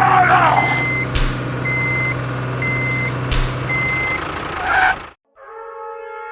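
Truck reversing alarm beeping about once a second over a steady diesel engine hum, with a few sharp clicks. Near the end the truck sound cuts off abruptly and brass music begins.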